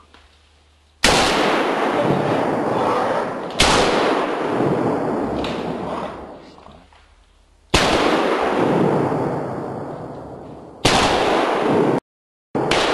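Four loud gunshots from hunting guns, the first about a second in and the last near the end. Each is followed by a long rolling echo that fades over two to three seconds.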